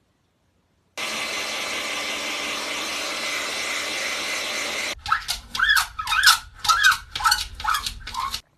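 Hand-held hair dryer blowing steadily for about four seconds, then cutting off. It is followed by a run of about six short squeals that rise and fall in pitch, roughly two a second, with knocks between them.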